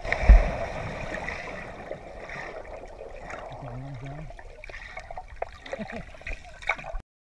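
Person plunging into a river, heard through an underwater camera: a heavy muffled thump about a third of a second in, then a steady fizz of rising bubbles that slowly fades, with scattered small clicks near the end.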